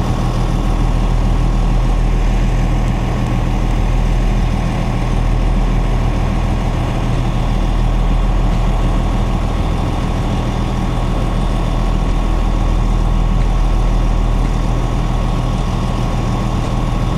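Steady, loud engine-like idling drone with a low hum, unchanging until it cuts off at the end.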